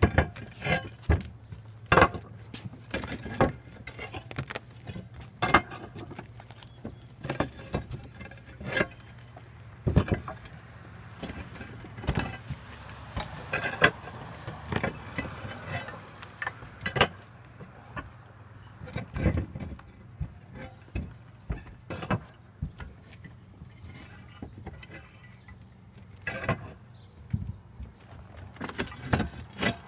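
Flat roof tiles clacking and knocking under footsteps and being handled, irregular sharp knocks every second or so over a steady low hum.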